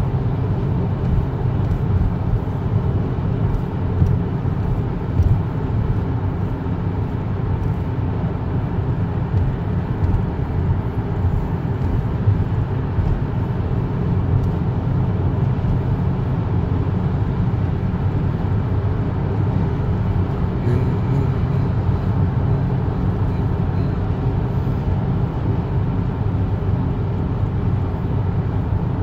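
Steady road and tyre noise of a car driving, a continuous low rumble with a faint drone over it, the noise the driver is checking as a sign of a worn wheel bearing.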